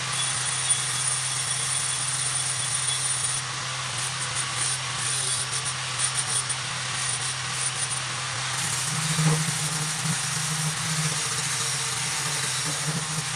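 Power tool motor running steadily while cutting into the end of a steel tube to cope it for a brace, with a steady hum and scratchy cutting noise; the hum gets louder about two-thirds of the way through.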